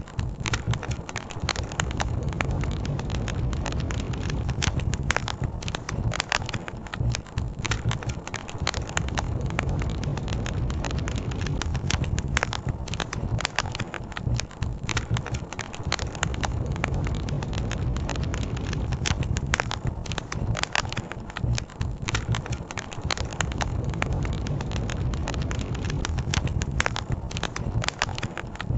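Campfire burning, wood crackling and popping in frequent irregular snaps over a steady low rumble.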